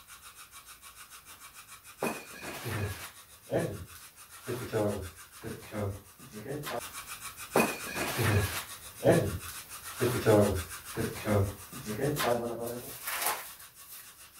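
Spirit box (radio-sweep ghost box) scanning: a rapid, regular pulsing of static at about six pulses a second, then choppy snatches of voice-like sound from about two seconds in.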